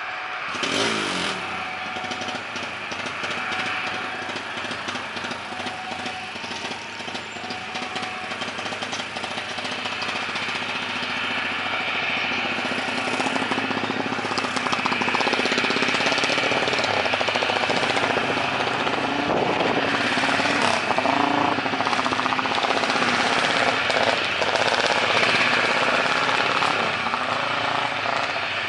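Roadside traffic with wind buffeting the microphone: a vehicle sweeps past about a second in with a falling pitch, and more vehicles pass later as the noise builds over the second half.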